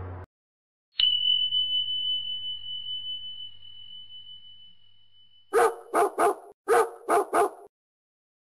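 A single high chime struck about a second in, ringing and fading over about four seconds, then a dog barking six short times in quick succession.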